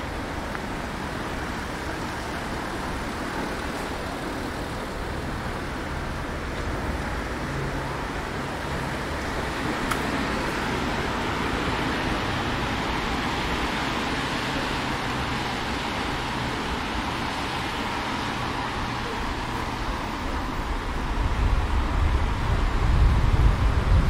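City street traffic noise: a steady wash of passing cars. About three-quarters of the way through, a deep engine rumble grows louder as a vehicle comes close.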